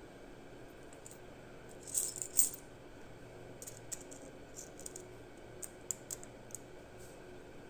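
Light metallic clicks and clinks of small knife parts and tools being handled on a workbench: a quick cluster of sharp clinks about two seconds in, then scattered single ticks.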